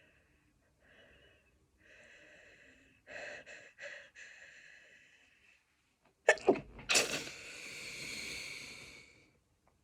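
A sneeze coming on: several soft, catching in-breaths, then a sudden loud sneeze about six seconds in that trails off in a breathy exhale lasting about two seconds.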